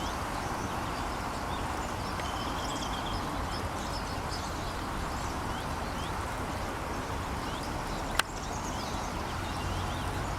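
Steady rush of a flooded stream's flowing water, with faint scattered chirps of small birds and a short trill about three seconds in. A single sharp click about eight seconds in.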